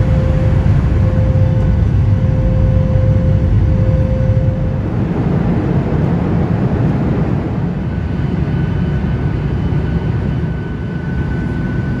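Steady cabin noise of a Boeing 737 MAX 8 airliner in flight: a dense low rumble of jet engines and rushing air. A faint steady whine breaks off about five seconds in, and a higher whine comes in after about eight seconds.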